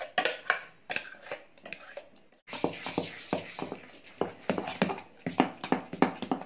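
A spoon scraping and knocking ground leaf paste out of a steel mixer jar into dosa batter, a few sharp irregular clicks. About two and a half seconds in, a hand mixing the paste through the batter in a steel pot, a fast, even run of wet squishing strokes.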